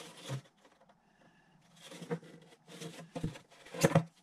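Handling noise from a plastic washing machine outlet box turned in gloved hands: short rustling and scraping sounds with pauses between them, and a sharper knock near the end.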